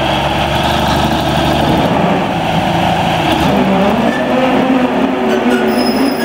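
The Upton MT855 tractor's 290 hp Cummins diesel engine running hard under load as it drags an 18-ton load out of a shipping container, its pitch shifting about halfway through. Thin high-pitched tones come in near the end.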